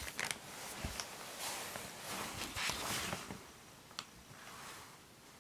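Rustling and scuffing close to the microphone, busiest during the first three seconds, with a single sharp click about four seconds in before it quietens.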